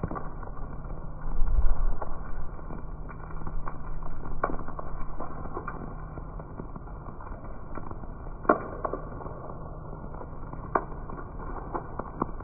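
Steady rain falling on paving and a parked car, with irregular sharp drips tapping on hard surfaces. A brief low rumble comes about a second in.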